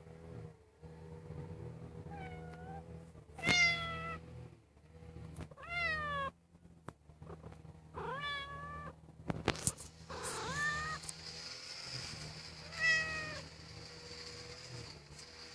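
An animal calling repeatedly: about six drawn-out calls with bending pitch, a couple of seconds apart, the first faint, over a steady low hum.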